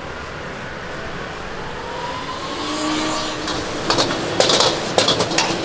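Street noise with a motor vehicle going by, its engine note rising, followed near the end by a rapid run of sharp clacks and clatter.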